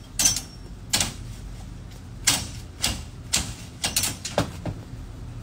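Twigs and small leafy branches being pruned from a tree: a run of about nine sharp, crisp snaps, irregularly spaced and coming faster near the end.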